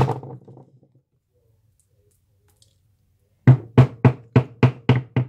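Claw hammer striking a hard lump on a tabletop: one hit at the start, then after about three seconds a quick run of about seven blows, roughly four a second, as the lump resists breaking.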